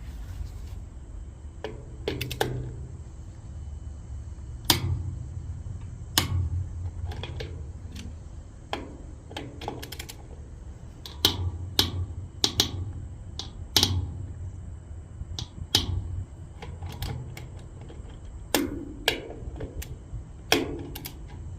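Click-type torque wrench clicking off at 95 foot-pounds on the wheel fasteners of a Dayton spider hub, one fastener after another. Sharp single clicks come every second or two, sometimes in close pairs, over a low steady rumble.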